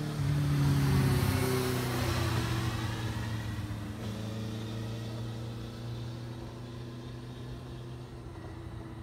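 Suzuki Impulse 400 four-cylinder motorcycle passing close by at speed, loudest about a second in, its engine note falling in pitch as it goes past. It then runs on more steadily and slowly fades away.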